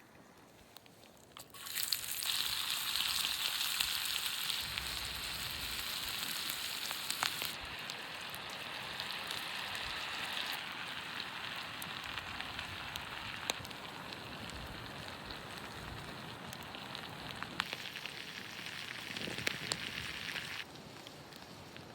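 Food sizzling and frying in a hot pan with scattered pops, starting suddenly about two seconds in, easing off and cutting off abruptly near the end.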